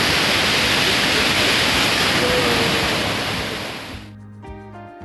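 Steady rushing noise of a waterfall, fading out about four seconds in as background music with held notes takes over.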